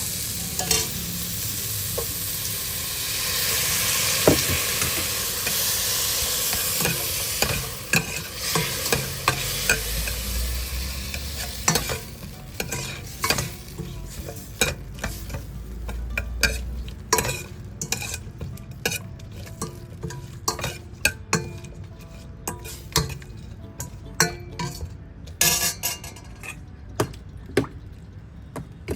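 Food sizzling in a hot pan while being stirred, with frequent clicks and scrapes of a utensil against the pan. The sizzle is loudest in the first several seconds, then dies down as the clatter of stirring takes over.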